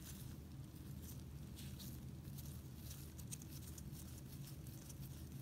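Faint, irregular scratching and rustling of nitrile-gloved fingers turning the knurled needle valve knob of a Bunsen burner, over a steady low room hum.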